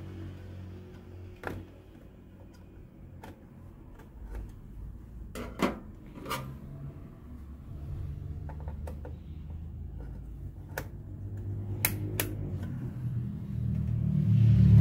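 Scattered sharp clicks and knocks of hands working at a desktop PC's memory slots as a RAM stick is pulled out of the motherboard. A low hum underneath grows louder near the end.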